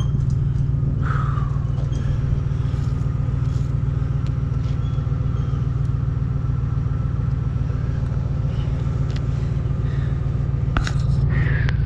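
A motor vehicle's engine idling steadily, a low even hum, with a single sharp click near the end.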